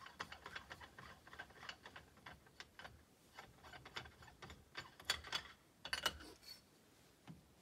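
Faint metallic ticks and clicks of a rifle being handled while its suppressor is twisted off the muzzle, with two sharper clicks about five and six seconds in.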